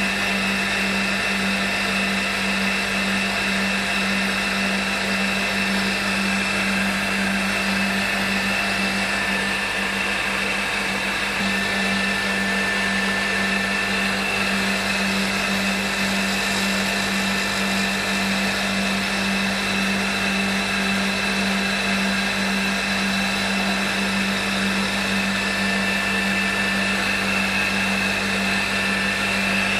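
Small CNC milling machine's spindle running steadily through a machining cycle that mills flats on a small part: a steady hum with high, even whining tones.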